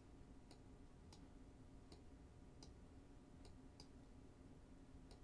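Near silence with about eight faint, irregular clicks of a computer mouse, over a faint steady hum of room tone.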